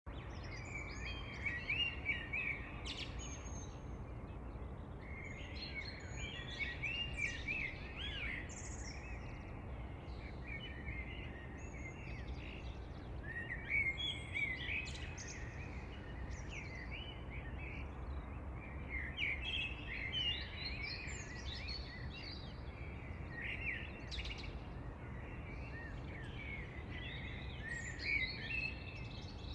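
Several songbirds chirping and singing in quick, overlapping calls over a steady low background rumble.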